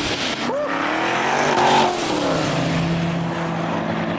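Supercharged Dodge Challenger accelerating past and away. The engine note sweeps up sharply, peaks and is loudest about a second and a half in, then falls back to a steadier, lower note as it drives off.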